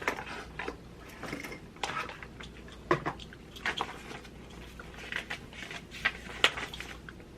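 Hands handling a small plastic alarm clock and its packaging: scattered light clicks, taps and rustles at irregular intervals, the sharpest about three seconds in and again near six and a half seconds.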